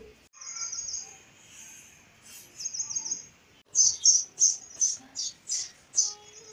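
Birds chirping: short high trilled phrases at first, then sharp chirps repeating about three times a second from a little past the middle.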